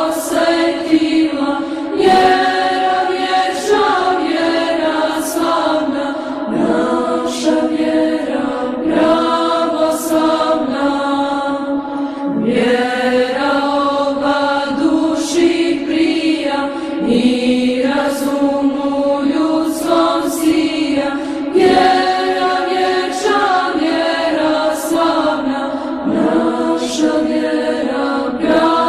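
Serbian Orthodox church chant: voices singing slow melodic lines in long held notes that step from pitch to pitch without a break.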